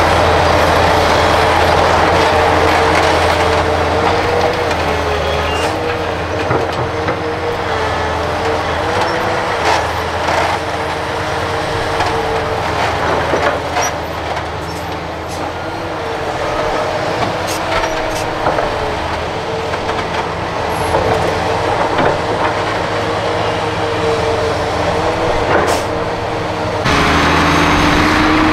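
Large Hitachi hydraulic excavator running under load: a steady diesel drone with a whining tone that wavers in pitch as it works, and scattered clanks and knocks of the bucket and soil being dumped into a dump truck bed. Near the end the sound jumps abruptly to a louder, fuller machine noise.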